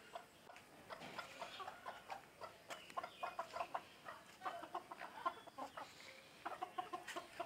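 Chickens clucking: many short, quick clucks in runs, busiest around the middle and again near the end.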